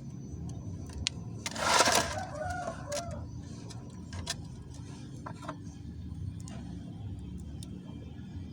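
A rooster crowing once, about a second and a half in, over scattered light clicks of metal work and a steady low hum.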